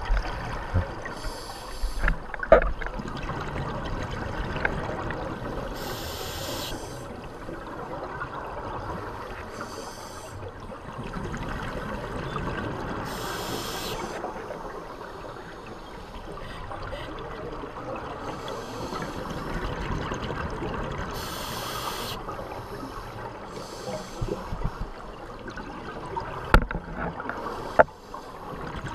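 Underwater audio of scuba diving: a steady muffled water rush with regulator breaths, a hiss about every three to four seconds. A few sharp knocks, two of them near the end.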